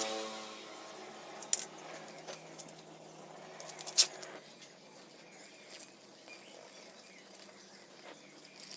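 Mostly quiet, with a faint hum that fades out about halfway through and a few light, sharp clicks, the clearest about one and a half and four seconds in.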